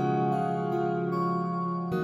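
Background music with sustained chords; a new chord comes in near the end.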